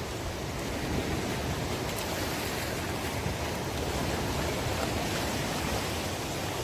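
Heavy rain falling steadily, an even wash of noise with no breaks.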